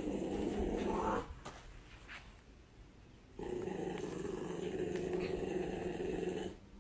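A dog growling in two long, steady growls: the first ends about a second in, and after a short pause the second runs for about three seconds.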